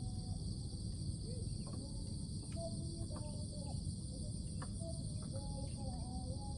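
A steady insect chorus, a constant high buzz in two bands, over a low rumbling hiss, with a few faint short chirps and clicks.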